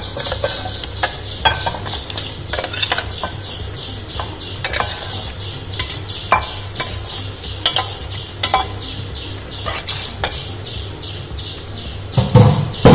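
Steel spoon scraping and clinking against a steel bowl as marinated chicken pieces are tipped into a pot of curry gravy, with many sharp clicks and knocks throughout. A louder clatter comes near the end as a ladle goes into the pot.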